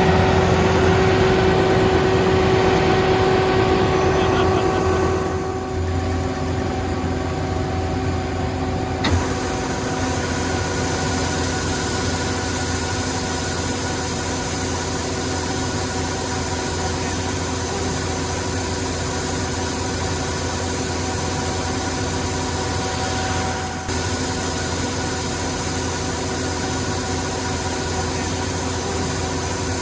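Corn harvester's engine running steadily with an even hum. Its note shifts and drops a little about five seconds in, and there is a single click near nine seconds.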